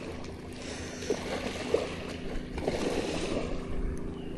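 Water sloshing and lapping under a steady low hum, with a couple of faint knocks.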